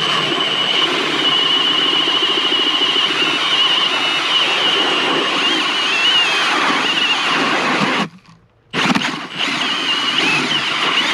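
A Milwaukee M18 Fuel cordless drill turns an Eskimo 8-inch pistol bit ice auger, its motor whining steadily while the auger blades grind into lake ice. The drill stops for under a second about eight seconds in, then starts again.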